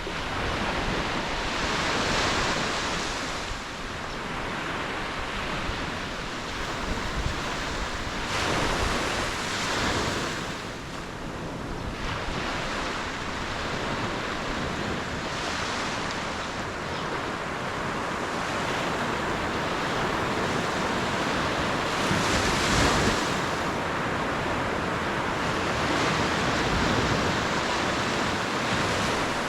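Ocean waves breaking and washing up on the shore, a steady surf hiss that swells with each incoming wave, about every few seconds.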